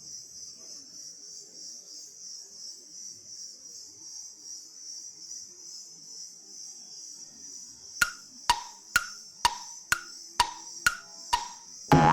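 Steady high chirring of night insects. About eight seconds in come eight evenly spaced, ringing wood-block-like knocks, about two a second, and a loud boing-like sweep starts at the very end.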